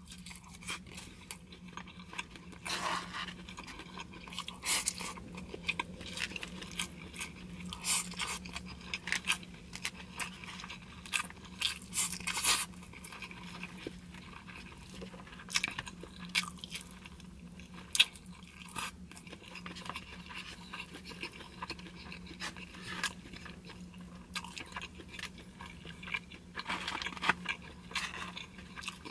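Close-up chewing of grilled beef and broken rice, with irregular crunches and mouth clicks, and a plastic fork scraping in a foam takeout box. A steady low hum runs underneath.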